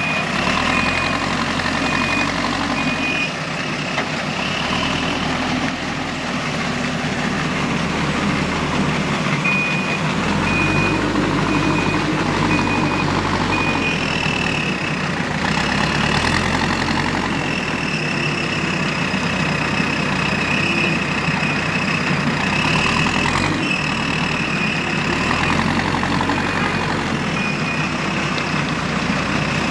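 JCB 3DX backhoe loader's diesel engine working, its note rising and falling every few seconds as it loads sand. A reversing alarm beeps steadily in several spells.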